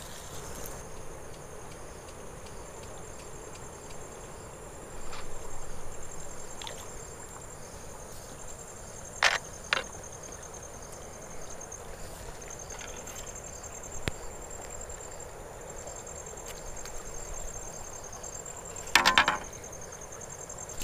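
Riverbank ambience: the steady rush of a flowing river with insects chirping in a high, pulsing drone. A couple of sharp clicks come about nine seconds in, and a brief rattle near the end.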